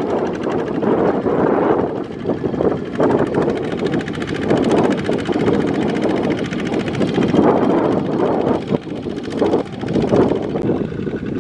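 Kubota ZT155 single-cylinder diesel engine of a two-wheel walking tractor running under load with a fast, even firing beat, hauling a trailer of rice sacks through mud.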